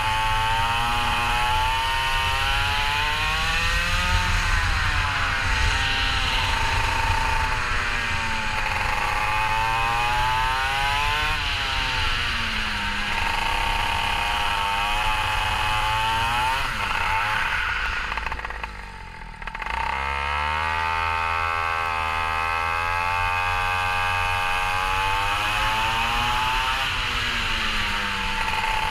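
Kart engine revving up and down, its buzzing pitch climbing and falling every few seconds; it dies away briefly about two-thirds through, then comes back.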